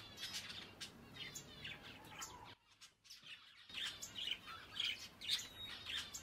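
Small birds chirping faintly in many quick, short calls, broken by about a second of silence around three seconds in.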